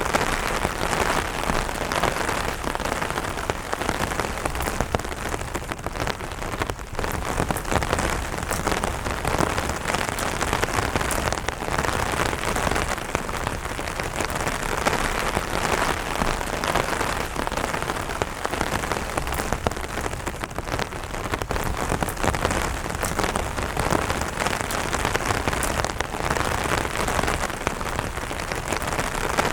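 Light rain pattering on an umbrella canopy: a dense, steady stream of individual drops ticking on the fabric.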